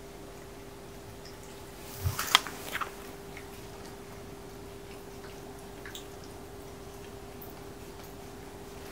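Quiet room tone with a steady low hum. A brief cluster of small clicks and a soft knock comes about two seconds in, the sharpest click near the middle of it.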